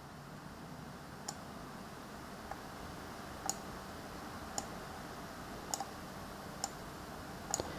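Faint, sparse single clicks of a computer mouse, about one a second, over a low steady room hum.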